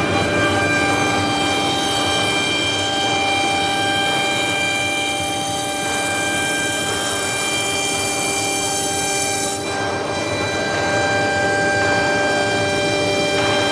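RC1530S automatic-tool-change CNC router running, its spindle giving a steady whine of several high tones over a constant noisy hiss. The higher tones thin out for a moment about ten seconds in.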